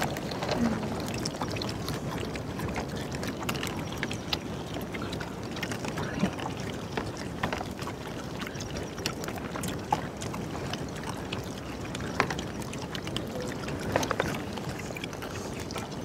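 Steady outdoor background hiss with scattered small clicks and crunches as a group eats crisp fried quail by hand, and a faint voice briefly near the end.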